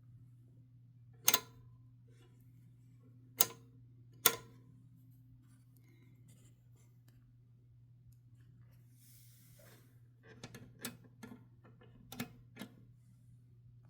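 1969 Adler J5 manual typewriter being worked by hand: three separate sharp clacks spaced a second or two apart, then after a pause a brief hiss and a quick run of lighter clicks, over a steady low hum.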